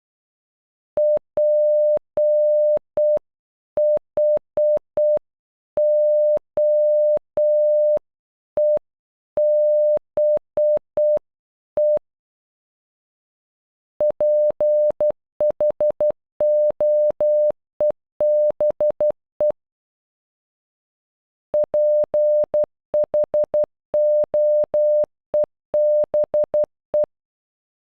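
Morse code beeps of a single steady tone spelling PHOEBE (.--. .... --- . -... .). It is sent once slowly at half speed, then twice at normal speed, with a pause of about two seconds between repetitions.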